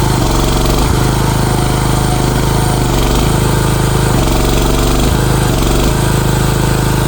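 CFG MX15RX mini excavator engine running, its pitch dipping and recovering briefly about five times as the hydraulics take load.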